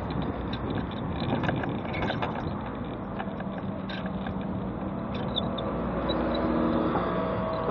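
Mobility scooter riding along a paved pavement: a steady rumble of its motor and wheels over the paving, with road traffic passing alongside. A few light rattles and clicks come about one and a half to two and a half seconds in, and a low hum joins near the end.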